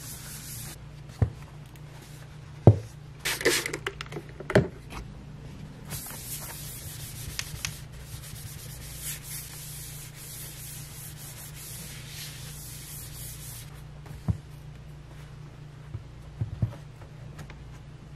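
Tissue rubbed over the aluminium case of a MacBook Pro, a soft hissing wipe in long stretches, with a few sharp knocks now and then as the laptop is handled.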